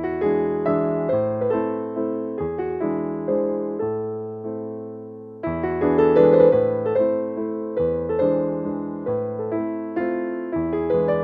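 Background piano music: chords and melody notes struck one after another, each fading away. A phrase dies down about five seconds in, and the next starts louder.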